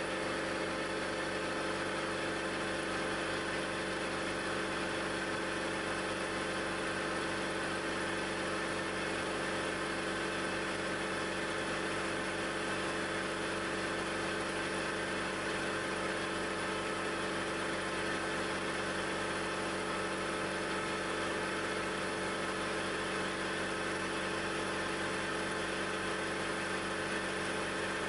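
Milling machine running steadily while an end mill helically mills a thread groove into a silver-steel gear-hob blank. A constant machine hum with several fixed tones under the cutting noise, with no change in speed or load.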